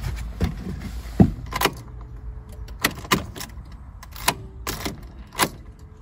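Ignition key being switched off and on with keys jangling, heard as a series of sharp clicks at irregular intervals; the 1.6 TDI diesel engine does not crank, a no-crank fault traced to the starter relay circuit.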